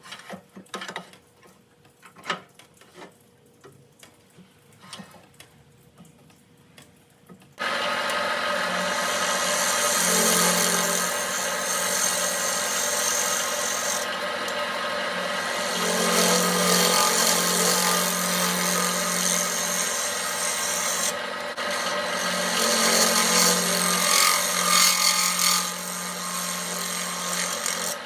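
Wood lathe spinning a wooden bowl blank while a turning tool cuts it: a steady low motor hum under a loud scraping hiss that swells and eases. It starts suddenly about seven seconds in, after a few faint clicks and knocks.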